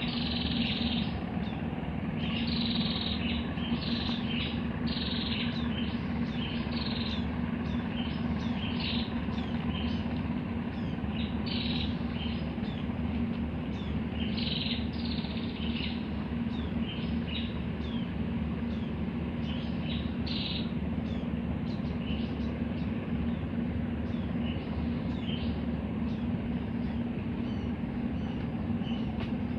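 Birds chirping in many short, high calls, some falling in pitch, more of them in the first two-thirds, over a steady low hum.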